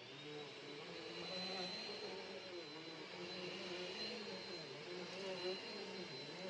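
Amazon Basics 720 W upright bagless vacuum cleaner running steadily, with a constant high whine over a lower hum that rises and falls in pitch.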